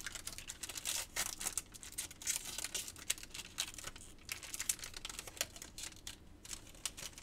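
Foil wrapper of a Topps baseball card pack crinkling and tearing as it is pulled open by hand, in quick irregular crackles that thin out toward the end.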